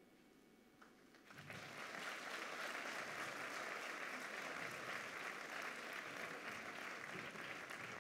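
Audience applause. It begins about a second and a half in, after a moment of near-quiet, and then carries on steadily.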